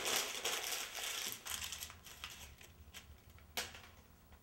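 Quiet rustling of paper and a pencil scratching on a notebook page, with one sharp tap about three and a half seconds in.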